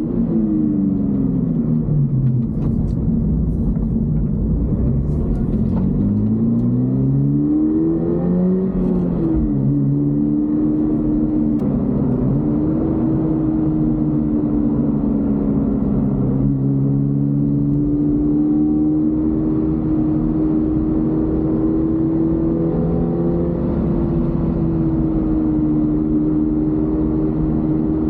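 Toyota GR86's 2.4-litre boxer four-cylinder engine under way: revs fall in the first couple of seconds, climb from about six seconds in, drop sharply around ten seconds in, then hold fairly steady with small rises and falls.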